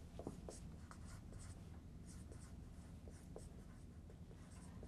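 Faint scratching of a dry-erase marker writing words on a whiteboard, an irregular run of short strokes.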